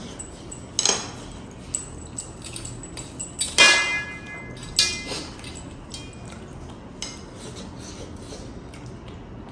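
A metal fork clinking and scraping against a large stainless steel plate of noodles, in a handful of separate knocks. The loudest, about three and a half seconds in, leaves the plate ringing briefly.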